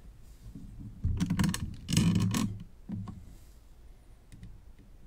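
Handling noise: a dense run of clicking and rattling starting about a second in and lasting about a second and a half, then a single click, with a few faint ticks near the end.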